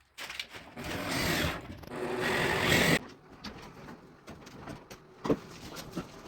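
A handheld power tool runs in two spells, the second louder, then stops sharply about three seconds in. A few separate knocks follow.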